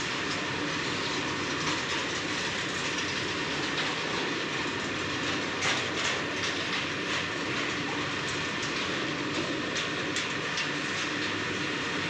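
Freight train of covered goods wagons rolling steadily past on the adjacent track: continuous rumble and wheel-on-rail noise, with scattered clicks and clacks from the wheels, the loudest about six seconds in.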